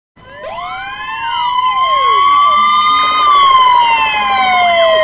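Layered siren sound effects: a main wail that climbs for about three seconds and then slowly falls, with quicker sweeping tones crossing it and a steady high tone underneath. It swells in over the first second or so.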